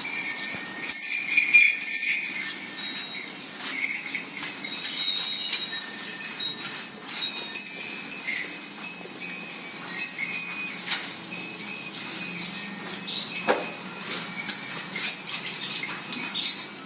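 Milk squirting into a metal pail in quick rhythmic strokes as a cow is milked by hand with the full-hand method. A steady high-pitched trill runs underneath.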